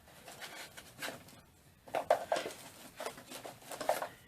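Irregular rustling and handling noises as items and packing paper in a cardboard subscription box are moved about.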